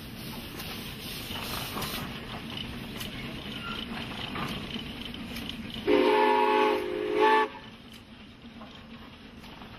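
A steam whistle gives one blast of about a second and a half, several tones sounding together, with a brief dip and a short final toot before it cuts off. Before and after the blast there is a steady background hiss.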